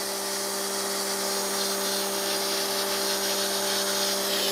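A pressure washer running steadily, driving soapy water through a foam cannon that is still spraying foam from its leftover solution. A steady hum sits under a high hiss of spray.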